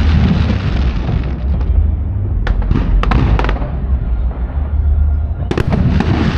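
Aerial firework shells bursting: sharp bangs and crackling, a cluster about two and a half seconds in and another near the end, over a steady low rumble.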